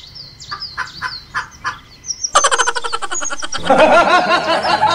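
Small birds chirping in quick falling notes. About two and a half seconds in, a louder rapid rattling trill starts, and near the end a chicken begins clucking.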